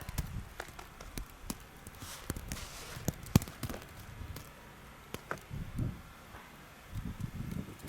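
Footsteps through deep snow: irregular soft thuds with scattered clicks, and one sharp click about three and a half seconds in.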